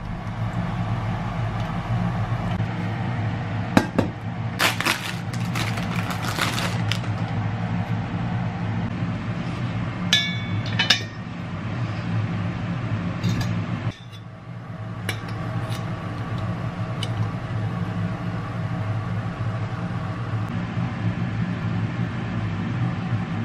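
Sharp clinks of ceramic and metal as a white oil pot and its filter cup are handled, in two short bunches in the first half with a few single clicks later, over a steady low hum.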